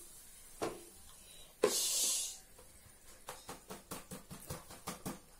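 Steel utensil working fried potato sticks out of a frying pan onto a plate: a brief hiss about a second and a half in, then a quick run of light metal clicks and taps.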